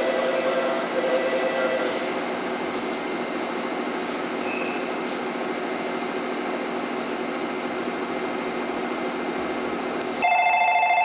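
0 Series Shinkansen pulling away down the line, its running noise and whine fading over the first couple of seconds into a steady trackside rumble. Near the end an electric bell-like ringing starts abruptly.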